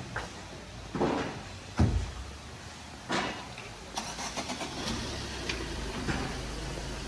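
A car door shuts with a low thump, then a car engine starts and runs at a steady low idle.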